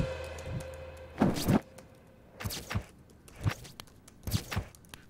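Footsteps on a hard floor, a thudding step about once a second, while the tail of background music fades out in the first second.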